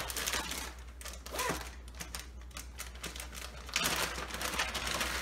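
Clear plastic zip-top bag being handled and its zipper seal pulled open: a run of small clicks and crinkles, with a louder rustle about four seconds in.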